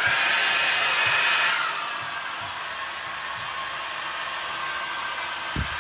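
Handheld hair dryer blowing on wet hair: a steady rushing hiss with a faint whine. It is loudest for the first second and a half, then settles lower and stays even.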